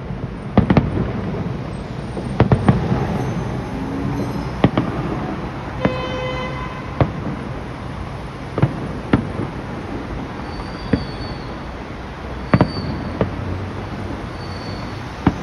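Fireworks display: aerial shells bursting in sharp bangs, irregularly every second or two, sometimes two or three in quick succession, over a steady low rumble.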